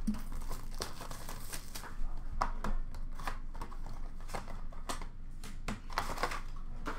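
Cardboard boxes and packaging crinkling and rustling as hands rummage through a plastic bin, with irregular light knocks and scrapes from handling.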